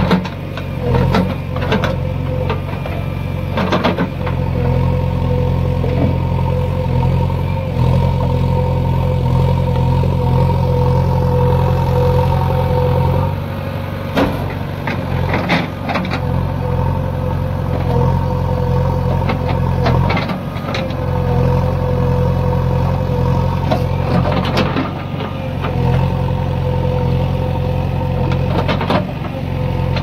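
JCB 3DX backhoe loader's diesel engine running under load as the backhoe digs out a tree stump, with a steady whine that breaks off a few times. Scattered knocks and clanks come from the bucket working the roots and soil.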